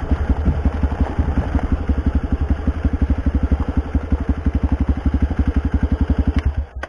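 A small engine idling with an even, rapid putter of about a dozen beats a second. It cuts off abruptly just before the end.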